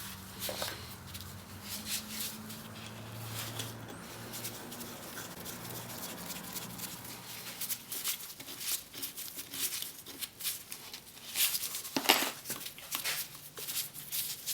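Winch parts and hand tools being handled during reassembly: scattered light clicks and scrapes of metal, more frequent in the second half, loudest about twelve seconds in.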